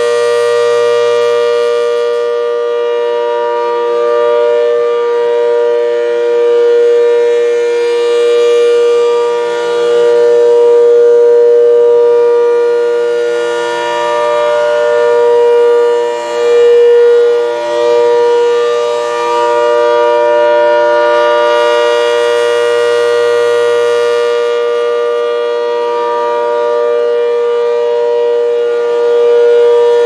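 ACA Hurricane 130 MKII rotating siren sounding its steady alert tone. The pitch holds level while the loudness swells and fades every several seconds as the horn turns.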